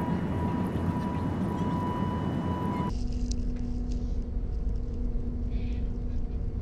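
Airliner cabin noise in flight: a steady roar of engines and airflow with a steady whine over it. About three seconds in it cuts abruptly to another stretch of cabin drone with a steady low hum and rumble.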